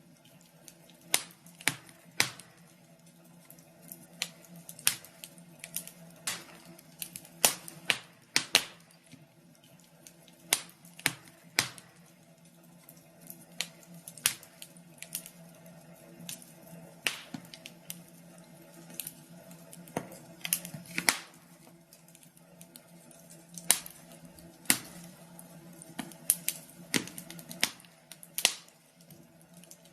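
Wood fire crackling in a fireplace: irregular sharp pops and snaps, one or two a second, over a faint steady low hum.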